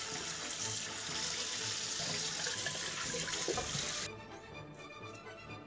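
Kitchen tap running onto dried yellow croakers in a colander in a stainless steel sink: a steady hiss of running water that stops abruptly about four seconds in, leaving soft background music.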